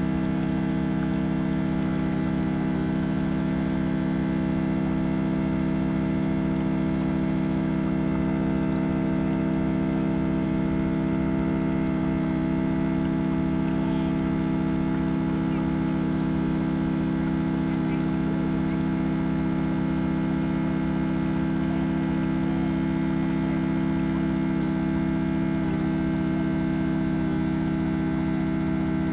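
Steady low machine hum made of several held tones, unchanging in pitch and loudness.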